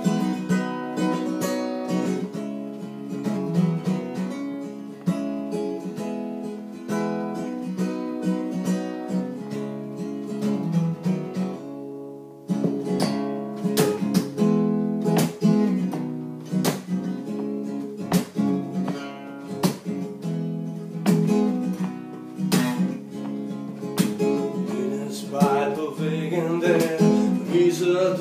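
Acoustic guitar playing a song intro, chords strummed in a steady rhythm, with a short break about twelve seconds in.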